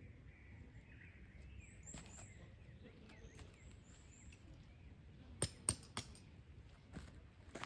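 Faint birdsong, with short runs of high chirps twice in the first half. About five and a half seconds in come three sharp knocks in quick succession.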